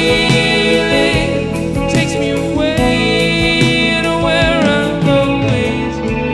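Live band playing a slow soft-rock ballad with electric guitar and drums, its long held notes wavering slightly in pitch around the middle.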